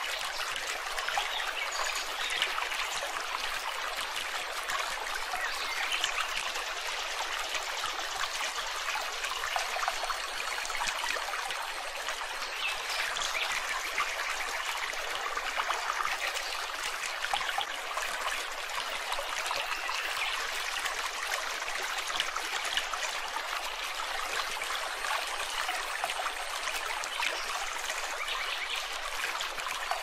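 Shallow stream running over rocks: a steady, even trickling and babbling of water with no deep roar.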